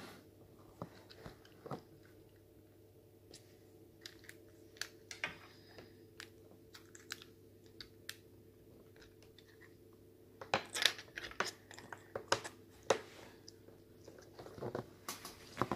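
Small plastic Lego pieces clicking and tapping as they are handled, pressed together and set down on a tabletop. Scattered single clicks, then a denser run of louder clicks and rattles about two-thirds of the way in.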